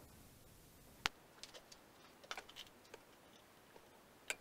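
A few faint, scattered clicks and taps of hand tools and small metal parts being handled, with one sharper click about a second in and two more near the end.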